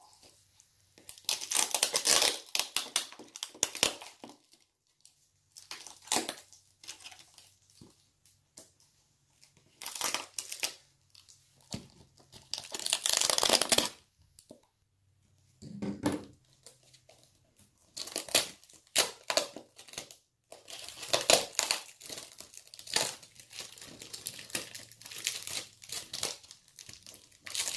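Sticky tape being peeled and ripped off a plastic fruit fly culture container, in irregular crackling, tearing bursts of one to a few seconds with short pauses between.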